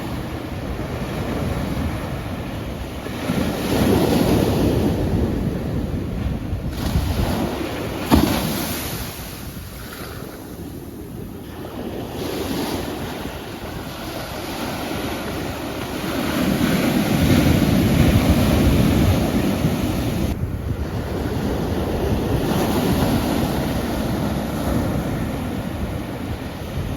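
Ocean waves breaking and washing on a shore, swelling twice into louder surges, with wind buffeting the microphone and a brief crack about eight seconds in.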